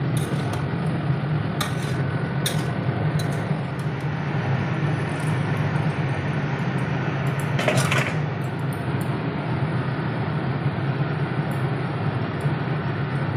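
Kitchen cooking sounds at a gas stove: a steady low rush from the lit burner under a simmering steel kadai, with a few sharp clinks of steel utensils against the pan and one louder, brief burst of noise about eight seconds in.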